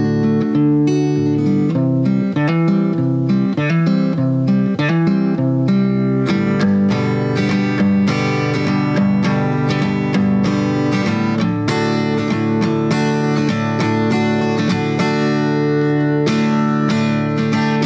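Background music on guitar: picked notes at first, then steady strummed chords from about six seconds in.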